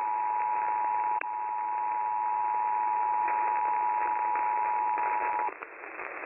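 Emergency Alert System attention signal: two steady tones sounding together over broadcast radio, cutting off about five and a half seconds in and leaving only radio hiss.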